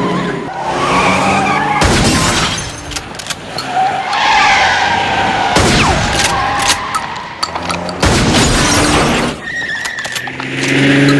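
Action-film sound effects: a car's engine and tyres under a dense mix, broken by several loud sudden bangs or crashes, about two, six and eight seconds in.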